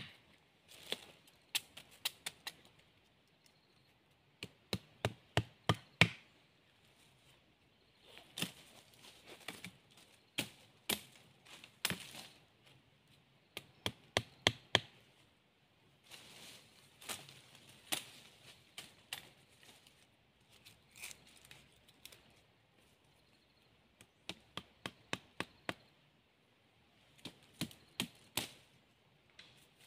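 Machete blade striking wooden stakes: bursts of sharp chops and knocks, several a second, with short pauses between bursts.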